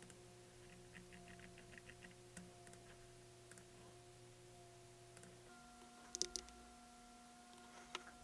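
Very faint background music holding a chord that changes about halfway through, with scattered soft computer clicks; the loudest are two short clicks about six and eight seconds in.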